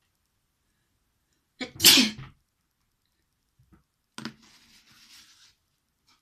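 A person sneezing once, a single loud sneeze about two seconds in, deliberately brought on for a sneeze challenge. A fainter click and breathy noise follow a couple of seconds later.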